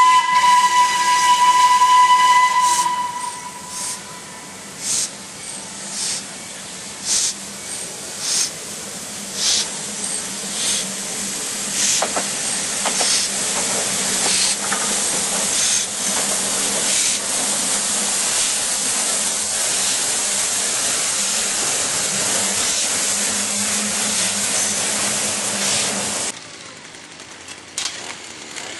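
North British-built steam locomotive No. 191 blows its steam whistle in one blast of about two and a half seconds. It then gives a string of separate exhaust chuffs roughly a second apart as it comes in, and a steady loud hiss of steam as it passes close. The hiss cuts off suddenly near the end.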